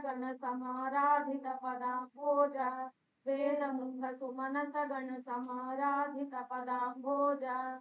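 A woman singing a line of a Kannada devotional verse in a slow, even melody, heard thinly through a video call, with a short break about three seconds in.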